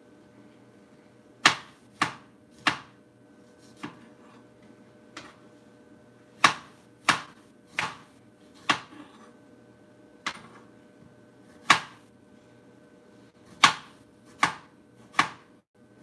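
Kitchen knife slicing strawberries on a plastic cutting board: sharp, irregular knocks of the blade striking the board, about fourteen of them, some in quick runs of two or three, over a faint steady hum.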